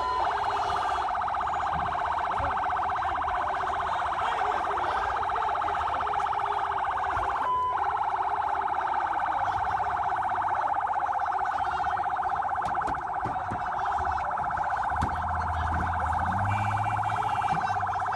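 Police vehicle siren sounding continuously in a fast warble, with a brief break about seven and a half seconds in. A low rumble joins near the end.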